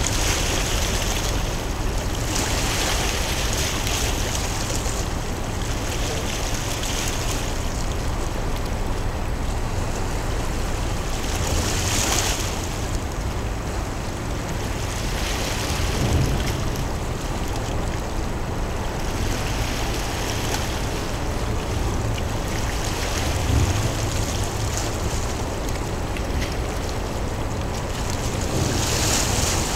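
Harbour water lapping with wind rushing over it: a steady noisy wash with a low rumble underneath. It swells brighter and hissier about two seconds in, again around twelve seconds, and near the end.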